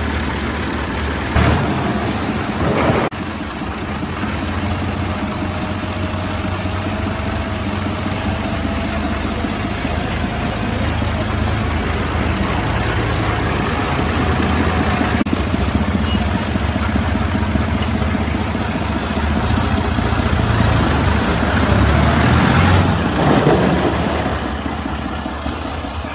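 Fiat (New Holland) 480 tractor's diesel engine running steadily as the tractor is driven, with a loud knock about a second and a half in and the engine growing louder for a few seconds near the end.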